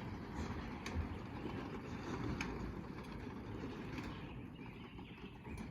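Craftsman 3/4-horsepower belt-drive garage door opener running as it closes the door: a steady mechanical noise with a few light clicks.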